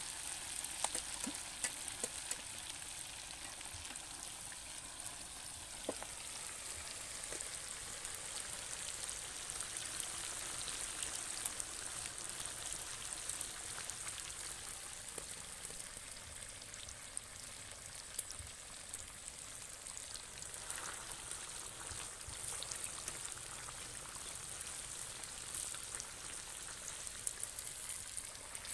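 Chicken pieces deep-frying in oil in a black iron pan over a wood fire: a steady sizzle with small scattered crackles.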